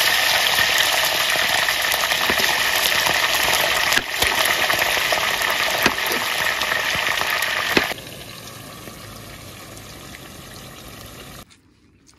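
Chicken pieces deep-frying in a pot of hot oil: dense sizzling with sharp crackling pops. It drops much quieter about eight seconds in and cuts off shortly before the end.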